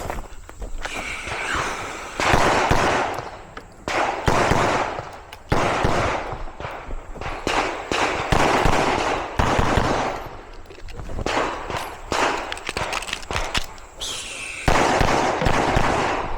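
Pistol fired in rapid strings of shots during a timed IDPA course of fire. Brief pauses fall between the strings.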